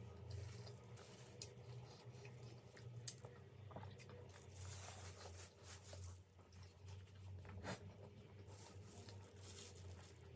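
Faint chewing of steamed veg momos: soft wet mouth sounds with a few small sharp clicks, over a steady low hum.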